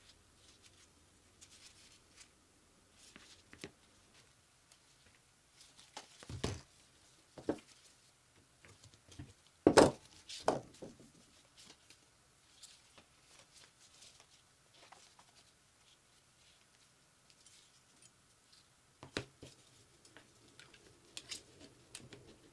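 Scattered clicks, knocks and short scrapes of hand work on a bench grinder being taken apart or cleaned, with the loudest knock about ten seconds in and a couple of smaller ones around it.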